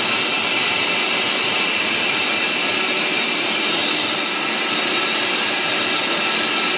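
Steady machinery noise from a running polypropylene mandrel extrusion line and its take-up winder: an even, high-pitched hiss with a few faint steady tones, unbroken throughout.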